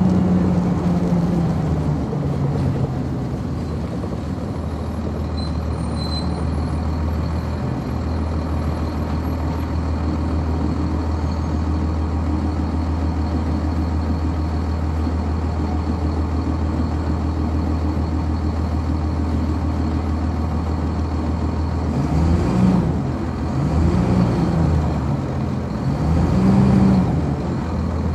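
Cummins ISC diesel engine of a 1999 Nova Bus RTS, heard on board. Its pitch drops to a steady low idle, then near the end engine speed rises and falls three times.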